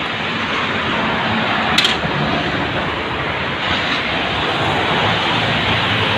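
Steady rush of street traffic noise from passing vehicles, with a short click about two seconds in.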